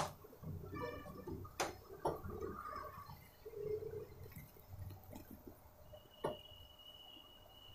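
Faint gurgling of ink draining from an upside-down Epson 001 yellow ink bottle into the printer's ink tank, with a few light plastic clicks from the bottle in its inlet, the sharpest at the start. A faint steady high tone comes in near the end.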